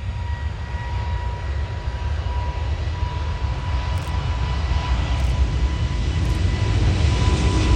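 Rolls-Royce Trent XWB jet engines of an Airbus A350-900 powering up for takeoff: a low rumble that grows steadily louder, with a thin steady high tone over it.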